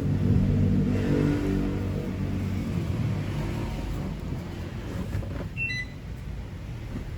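MiFa F6 Bluetooth speaker playing music heavy in low bass notes, which slowly fade out.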